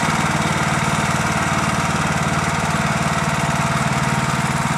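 Merry Tiller's small gasoline engine running steadily under load as the tiller works through garden soil, with a fast even firing pulse.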